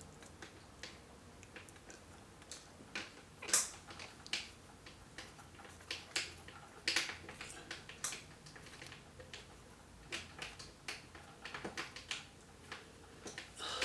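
Irregular small clicks and taps of metal parts against a vintage Singer 348 sewing machine's head as the needle bar, rocker arm and stud are worked into place by hand.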